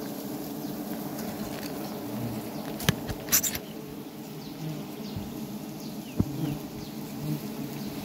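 A colony of wild honey bees buzzing steadily around their large open comb. A few sharp clicks cut in about three seconds in.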